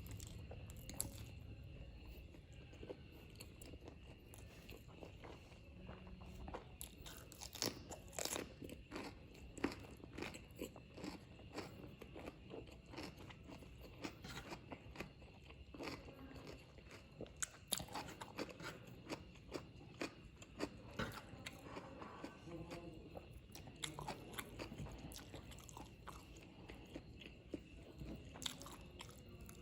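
Close-miked chewing of spicy Korean-style fried noodles: a long run of small, irregular mouth clicks and bites. A faint steady high tone sits underneath.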